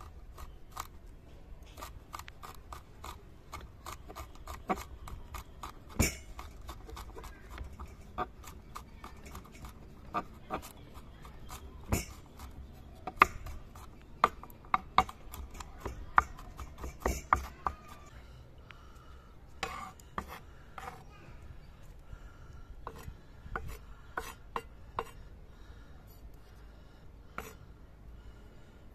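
Chef's knife mincing garlic cloves on a wooden cutting board: quick knocks of the blade on the wood, several a second, growing sparser in the last third.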